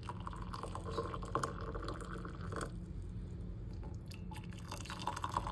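Water pouring from a stainless-steel electric kettle into ceramic mugs. The stream stops a little before halfway and starts again near the end as the next mug is filled.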